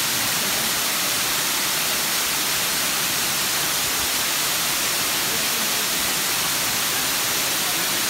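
Waterfall cascading down a tiered rock face: a steady, unbroken rush of falling water.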